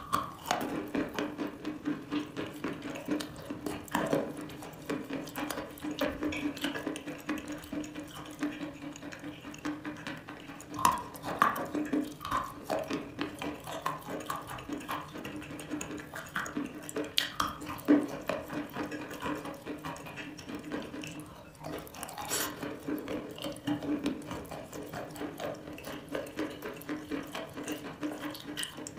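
Close-up wet crunching and chewing of a block of chalk soaked in chalk paste, with many sharp crackles and sticky, squelchy mouth sounds, and a few louder crunches.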